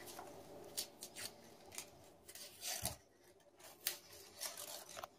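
Small kitchen knife paring the dry skin off an onion: faint, irregular scrapes and clicks of the blade on the onion, with one soft knock near the middle.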